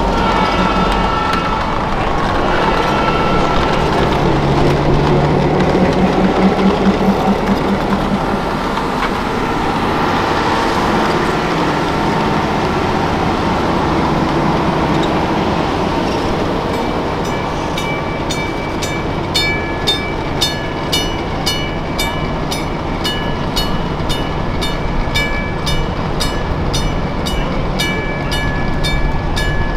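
Chicago and North Western bi-level passenger train and its diesel locomotives rolling past at close range. About halfway through, a bell starts ringing steadily, about two strikes a second.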